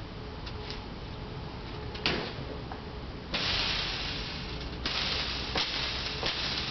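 A sharp click, then a fog machine starts hissing abruptly about halfway through, loudest for about a second and a half before carrying on as a softer hiss, with a few light clicks over it.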